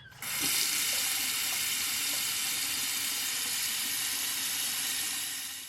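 Water running steadily from a tap, starting about a quarter second in and stopping abruptly near the end.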